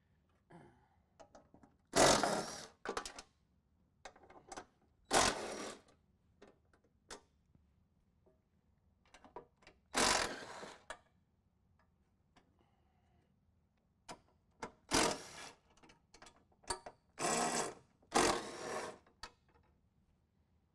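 Cordless impact driver with a 15 mm socket running in six short bursts, each under a second, as it backs bolts out of metal bumper bracketry, with light clicks of handling and loose bolts in between.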